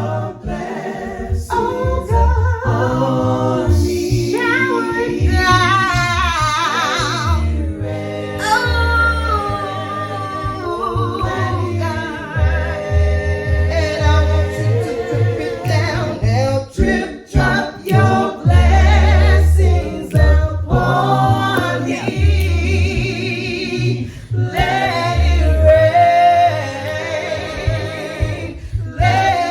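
A cappella gospel choir singing a praise and worship song, with a female lead voice over harmonized group vocals and a pulsing vocal bass line.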